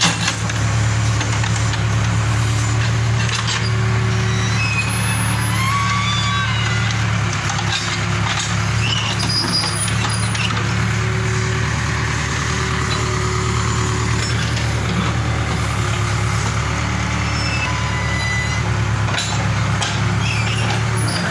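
Excavator's diesel engine running steadily, a continuous low drone.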